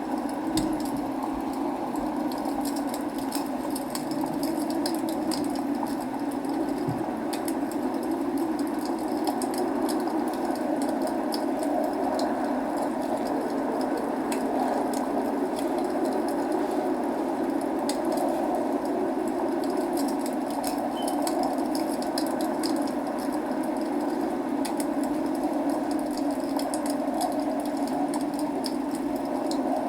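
Log fire crackling with many small, sharp pops over a steady rushing noise of rain.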